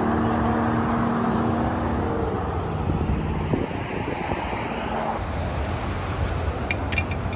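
Highway traffic noise at the roadside, with a vehicle engine's steady hum that fades out about two and a half seconds in. Wind rumbles on the microphone, and a few sharp clicks come near the end.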